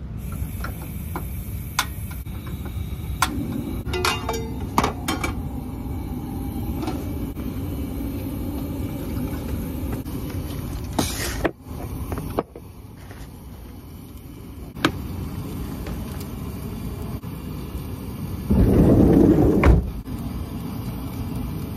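Steady low rumble of a vehicle driving on the road, with scattered clicks and knocks. The noise drops away briefly about halfway through, and a louder burst of low noise lasts about a second near the end.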